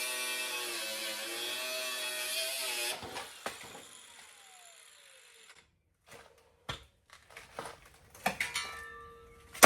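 A power tool runs steadily for about three seconds, then is released and winds down with a falling whine. Scattered metal clicks and knocks follow, ending in one sharp metal clang near the end.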